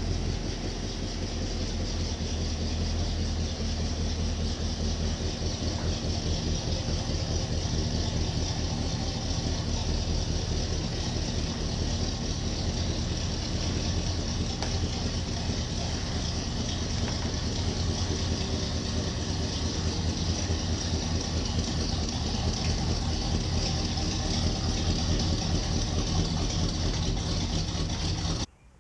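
Chevy 350 V8 of a 1958 Chevy Viking truck running steadily at low speed while the truck rolls slowly out of the garage, a low exhaust note with an even firing pulse and no revving. The sound cuts off abruptly near the end.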